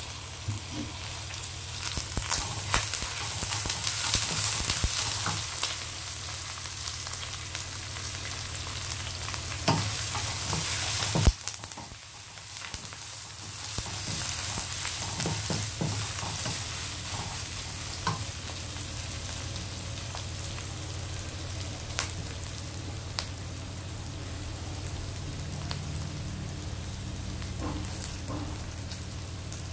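Ginger, curry leaves and fenugreek seeds sizzling in hot oil in a wok, with a spatula clicking and scraping against the pan as they are stirred. One loud knock comes about 11 seconds in, the sizzle briefly dies down after it, and a low steady hum runs underneath.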